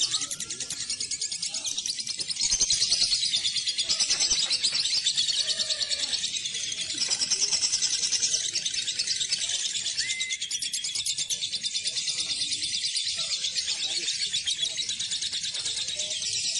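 Kepo lovebird singing a long, unbroken chatter of rapid high-pitched notes that swells louder in several stretches.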